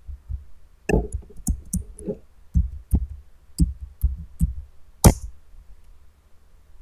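Computer keyboard being typed on: a quick run of key clicks for about three and a half seconds, then one louder key strike about five seconds in, the Enter key sending the typed password.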